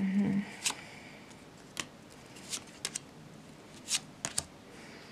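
Tarot cards being drawn from the deck and laid down on a wooden table: a scatter of short card snaps and slides, about seven in all.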